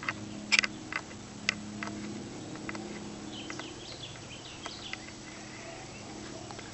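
Scattered crackles and snaps of footsteps on dry forest leaf litter, most in the first few seconds, then a few faint bird chirps in the middle, over a low steady hum.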